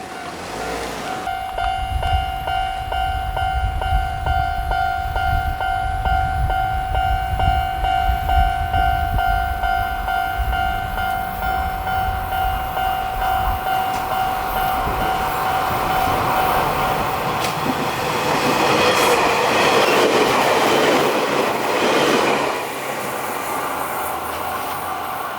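Railroad crossing warning bell ringing steadily as a Chichibu Railway electric train passes, its low rumble stopping about halfway. Later a louder rushing rail noise swells for a few seconds and drops away suddenly while the bell rings on.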